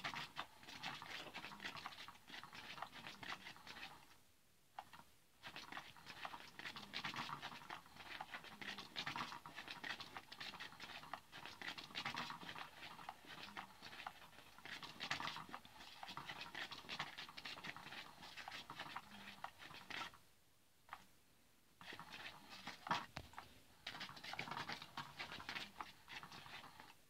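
Battery-powered Cat's Meow cat toy running, its motor whirring and the wand beneath it rustling against the nylon skirt. It stops twice briefly, about four seconds in and about twenty seconds in, then starts again.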